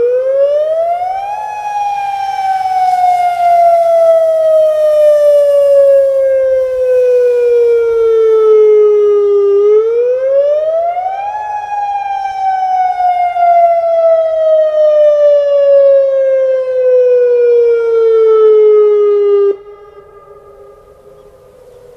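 Federal Signal Modulator electronic outdoor warning siren sounding a wail: the pitch climbs quickly, then sinks slowly over about eight seconds, and the cycle repeats. It cuts off abruptly near the end, leaving only a much fainter steady tone.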